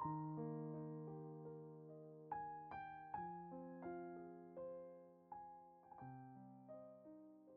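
Quiet, slow piano music: single notes and chords struck every second or so and left to ring and fade.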